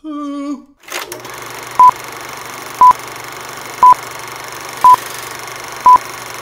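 Old-film countdown leader sound effect: a steady projector-like hiss and hum with five short high beeps, one each second, the beeps the loudest sound. It is opened by a brief wavering voice-like note.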